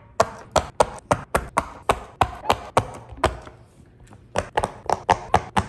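Silicone pop-it fidget toys, their bubbles pressed in one after another by fingers, popping in a quick run of about four pops a second, with a short break about three and a half seconds in.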